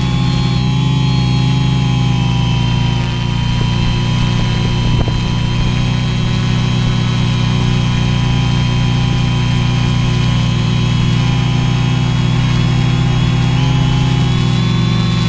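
Multirotor quadcopter's electric motors and propellers running in flight, a loud, steady hum with a whine above it, close to the on-board camera.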